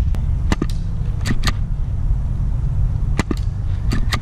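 Internally suppressed HPA VSR-10 bolt-action airsoft sniper rifle firing. Sharp clicks come in close pairs about four times, over a steady wind rumble on the microphone. The BBs are striking a tree in the line of fire.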